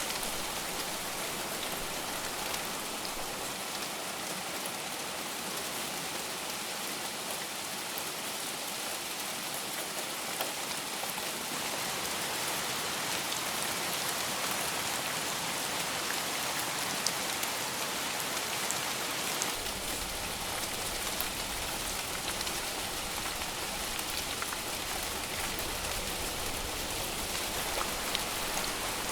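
Heavy rain falling steadily, a dense hiss with scattered individual drop taps. A faint low rumble comes in about two-thirds of the way through.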